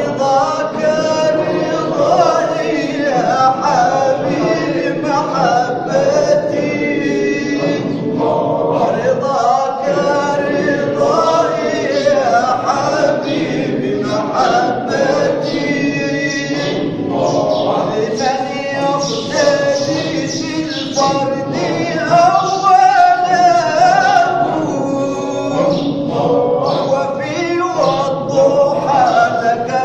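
Sufi devotional chanting (inshad): a group of voices singing together without a break.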